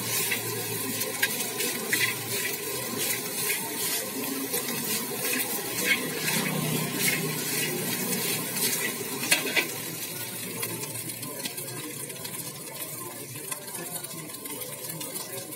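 Rice, cabbage and greens stir-frying in a steel wok with a steady sizzle, while a metal spatula scrapes and clinks against the pan. The sound eases off slowly toward the end.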